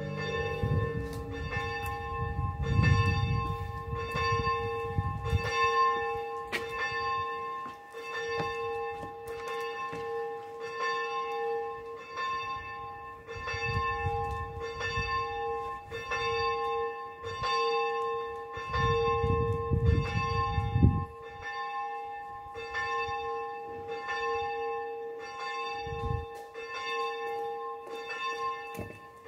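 A single church bell tolling at about one stroke a second, each stroke ringing at the same pitch and carrying into the next. A low rumble rises under it several times.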